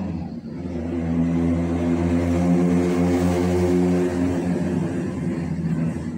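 A motor vehicle's engine passing by: a steady low hum with a rush of noise that swells to a peak about three seconds in and fades toward the end.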